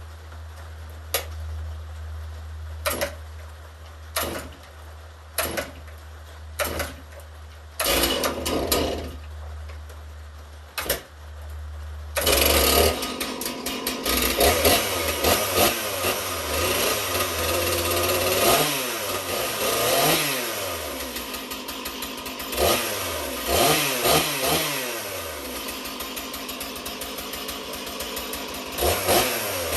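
Stihl two-stroke chainsaw being pull-started after sitting unused for a while: several sharp tugs on the starter cord, about one every second or so, before the engine catches about twelve seconds in. It then runs, revved up and down repeatedly.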